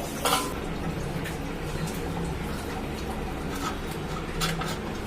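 A few light knocks and clicks as the cleaned toilet ball cock (fill valve) is handled and fitted back into the tank, over a faint steady hiss.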